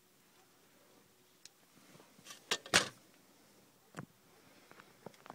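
A few sharp plastic clicks and knocks from handling the dashboard's removed trim strip and its plastic clips, the loudest a little under three seconds in and another about four seconds in.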